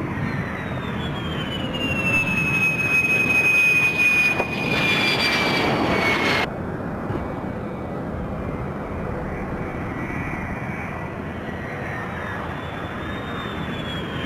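F-16 fighter jet engines running loud, with a high turbine whine that slides down in pitch as a jet goes by. About six seconds in the sound cuts abruptly to another jet, whose whine also falls near the end.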